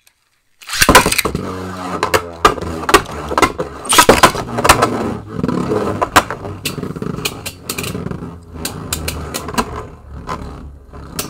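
Two Beyblade Burst tops, Helios Volcano and Golden Dynamite Belial, are launched into a plastic stadium with a sudden loud clatter about a second in. They then spin on its floor with a steady low whirr and scraping, broken by frequent sharp clacks as they collide.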